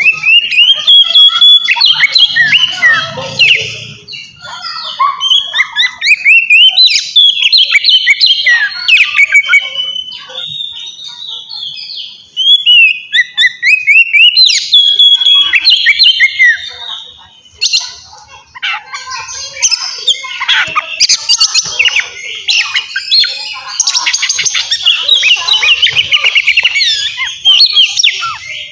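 Oriental magpie-robin singing loudly. Varied whistled phrases glide up and down, and from about two-thirds of the way in they run into long spells of fast, harsh chattering.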